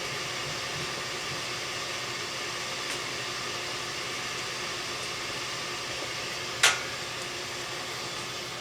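A steady hiss, with one sharp click about seven seconds in.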